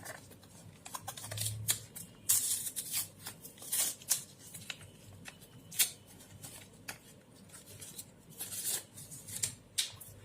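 Plastic wrapping being pulled off a pen tablet: irregular crinkles, clicks and short rustles, with a few louder scrapes.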